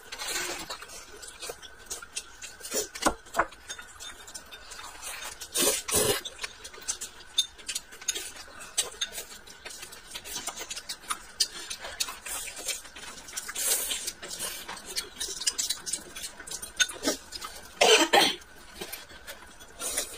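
Close-up eating sounds: chopsticks clicking against plates and a glass bowl, and chewing and slurping of cold vermicelli noodles and steamed dumplings. A few louder slurps are spread through, the loudest near the end.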